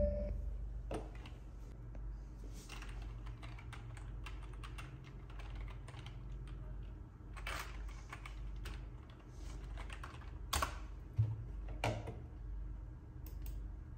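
Typing on a computer keyboard: scattered light keystrokes, with a few louder clicks in the second half, over a low steady hum.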